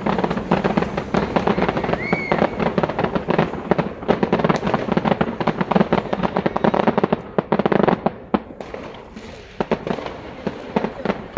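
Fireworks display: dense, rapid crackling and popping of bursting fireworks with a short whistle about two seconds in. The crackle thins out and gets quieter over the last few seconds.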